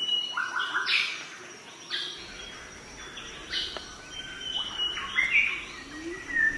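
Birds calling: a run of short chirps and whistled notes that jump between pitches, coming in clusters about every second over a faint background hiss.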